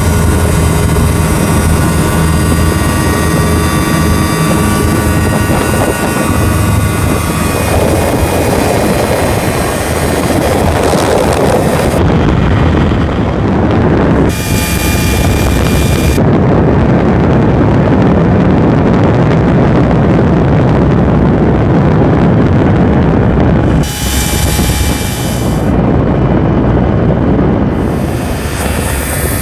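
Thruster TST microlight's engine and propeller running loud and steady, heard from inside the open cockpit with wind rushing past the microphone. The steady engine note is clear at first, then mostly buried under the rushing air, which changes abruptly several times.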